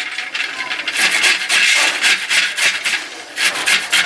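Fresh peeled ginger grated on a small hand grater: quick back-and-forth rasping strokes, one after another, with a short lull near the end.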